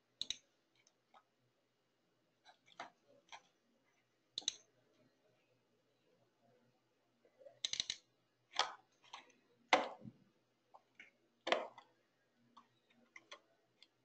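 Faint, irregular computer mouse clicks, a scattered handful, with a denser run of louder clicks from about seven and a half to twelve seconds in.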